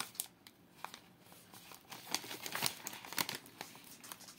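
Plastic snack bag of pistachios crinkling as it is handled: irregular crackles, thicker in the second half.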